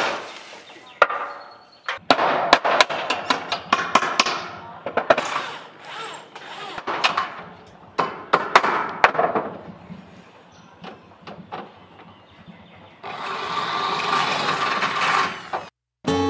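Irregular runs of sharp knocks and taps from work on a corrugated roof sheet laid over a steel roof frame, with scraping between them as the sheet is shifted into place.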